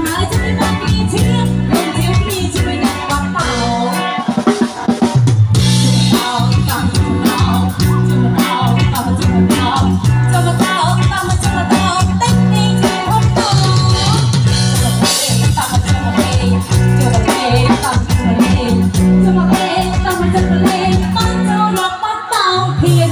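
Live Khmer dance band playing loudly through a PA. A steady drum-kit beat and bass line carry a woman singing into a microphone.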